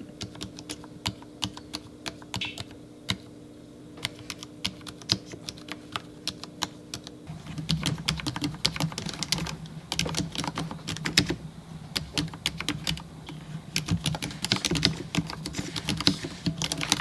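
Vissles V84 mechanical keyboard with linear switches being typed on as a sound test. Separate key presses clack at first, then give way to faster, continuous typing from about seven seconds in.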